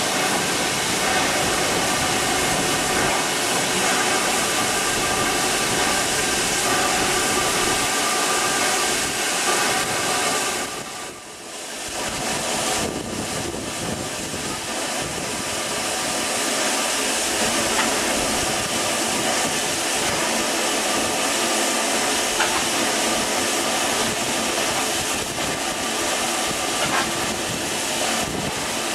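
Steam hissing steadily from LNER B12 4-6-0 locomotive No. 8572 as it stands at the platform, easing briefly about eleven seconds in.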